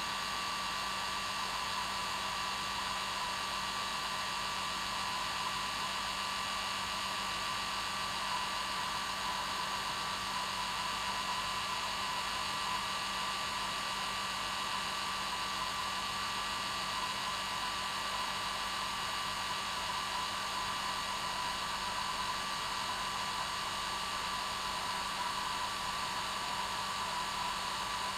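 Hair dryer running continuously at a steady speed: an unchanging blowing hiss with a constant motor whine.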